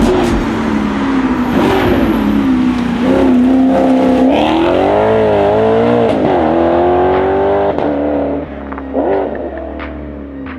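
Tuned Japanese sports car's engine revving hard under acceleration, its pitch dipping and climbing with the revs, then dropping away about eight seconds in.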